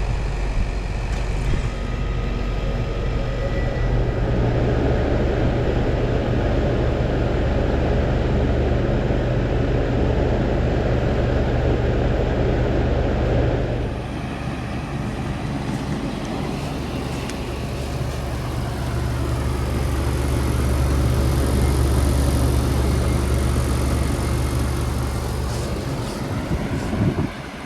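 Bard wall-mount air conditioners running in cooling mode: a steady compressor hum under the rushing air of the condenser fan. About halfway through, the sound changes abruptly to a different unit's hum and fan noise.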